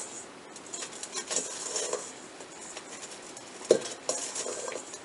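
Bath bomb mixture being scooped and packed into a round mold against a stainless steel mixing bowl: scattered scrapes and light taps, with one sharper knock of the mold on the bowl about two-thirds of the way through.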